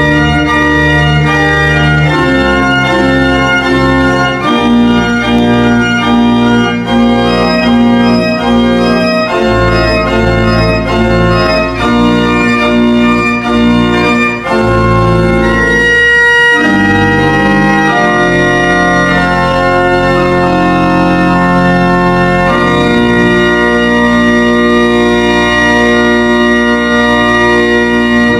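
Freshly restored church pipe organ playing a piece in several parts: sustained chords that change step by step over bass notes, ending on a long chord held through the last few seconds.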